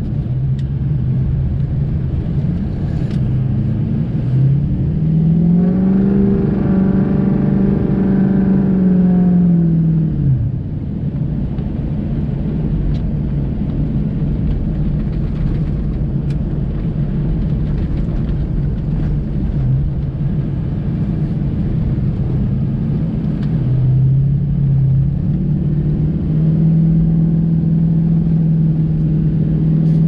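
Plow truck's engine running under a steady low rumble of driving on a snowy road. The engine note rises about five seconds in, holds, drops back around ten seconds, then picks up again near the end and holds.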